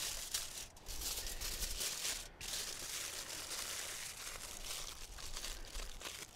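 Aluminium foil crinkling and crumpling by hand as it is folded and crimped shut into a parcel.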